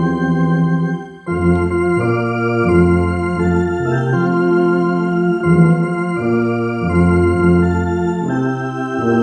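Electronic organ played with a tuba voice on the bass pedalboard: a stepping bass line of held low notes under sustained chords, with a short break just after a second in.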